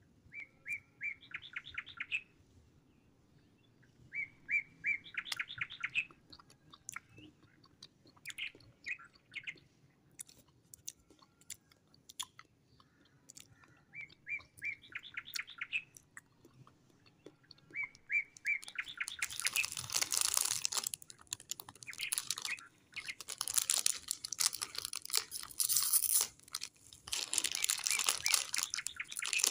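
A bird calling repeatedly in short quick trills of repeated notes, five times over the first twenty seconds. From about nineteen seconds in, loud crinkling of a plastic snack packet being handled and torn open.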